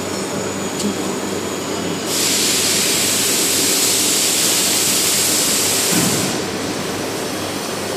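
A double-head window-profile cutting saw runs with a steady low machine hum. About two seconds in, a loud hiss starts abruptly, holds steady for about four seconds, then stops.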